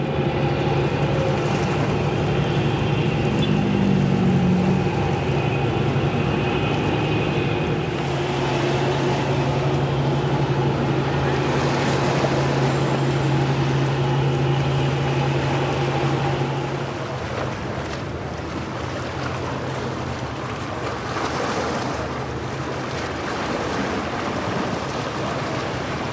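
Low, steady drone of passing ships' engines over wind and water noise; the drone weakens about two-thirds of the way through.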